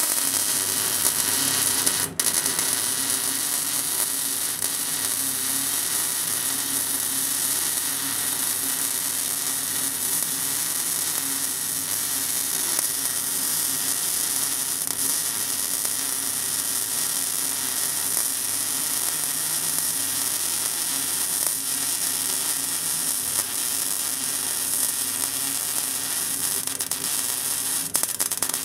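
Electric arc welding on a steel tube: a continuous, steady crackling hiss as one long bead is run along the seam, with a momentary break about two seconds in.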